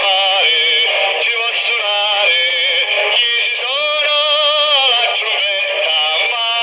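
Music with singing, played over a two-way radio channel and heard through the receiver's speaker, so it sounds thin and narrow, with no bass or top end.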